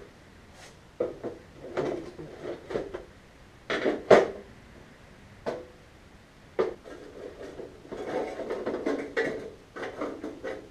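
Metal parts of a VW Beetle 1600 air-cooled engine being handled while the sheet-metal fan shroud is worked off: scattered knocks and clanks, the loudest about four seconds in, then a busier stretch of rubbing and scraping near the end.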